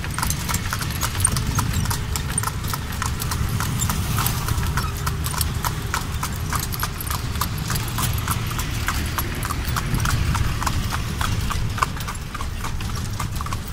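A horse's hooves clip-clopping on a paved road as it pulls a tonga horse cart, in a quick, steady run of hoofbeats over a steady low rumble.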